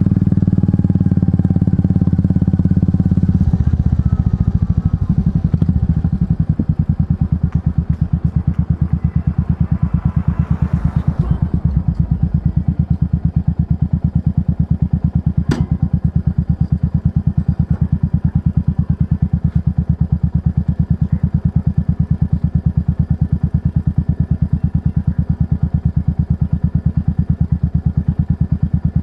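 Royal Enfield Meteor 350's single-cylinder engine, breathing through an aftermarket exhaust, drops from riding speed a few seconds in and settles into an even, thumping idle. A brief hiss comes around the middle, and one sharp click follows a few seconds later.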